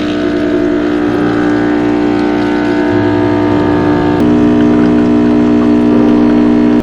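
Background music: held synth-like chords over a moving bass line, changing chord about four seconds in.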